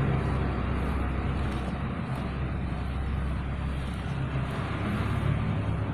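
A machine running steadily, with a low hum under an even rushing noise.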